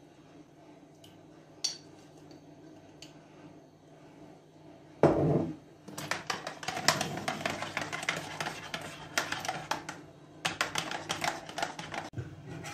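A spoon beating rapidly against a ceramic coffee cup, whipping coffee into foam. It comes in two spells with a short break about ten seconds in, after a single loud thump about five seconds in.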